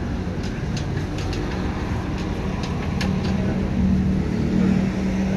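Steady low rumble of an engine running, with its hum swelling about three seconds in, and a few light clicks over it.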